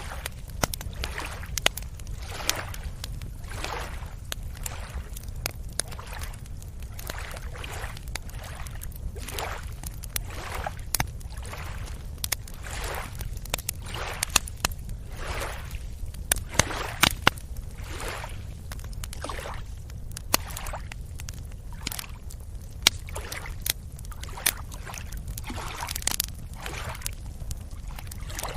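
Small waves lapping and sloshing at a beach shoreline, a wash about every second or two with sharp splashy clicks among them, over a steady low rumble of surf.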